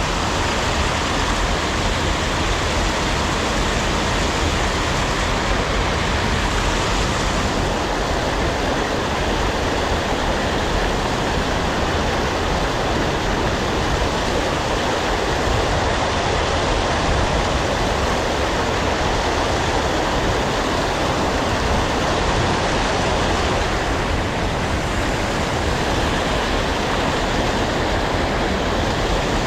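Creek water rushing steadily over rocks: a loud, even hiss with no change.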